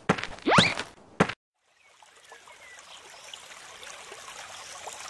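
A short snatch of music with sharp hits and a quick rising glide cuts off about a second in. After a brief silence, a steady trickle of flowing water fades in, with a few faint chirps.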